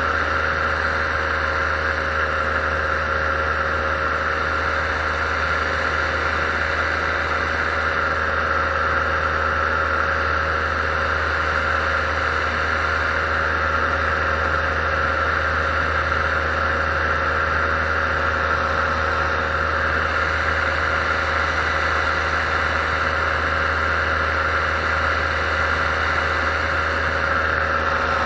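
Paramotor engine and propeller running steadily at constant cruise throttle in level flight, a continuous drone with no change in pitch or level.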